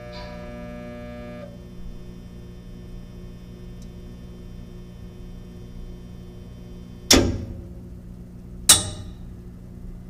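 Steady electrical buzz of a 9,000-watt Hatco dishwasher booster heater switched on while its pressure climbs. A brief higher tone sounds at the start. Two loud bangs come about a second and a half apart near the end.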